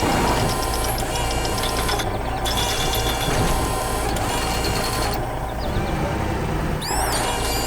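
Vehicle engine running steadily, with high beeping tones coming and going over it and a few short swooping chirps near the end.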